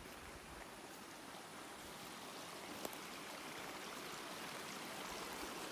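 A small forest creek running: a steady rush of water that grows gradually louder.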